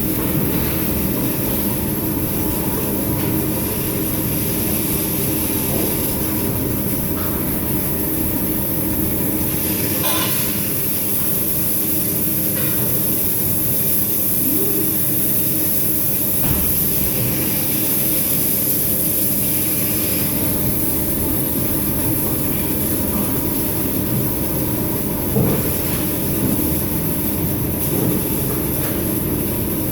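Waterjet pastry cutter, a 0.15 mm nozzle at 2750 bar, cutting a frozen cake. It makes a steady loud high hiss over a machinery hum. The sound swells briefly a few times, which is the jet crossing the cake's border; it drops lower while cutting inside.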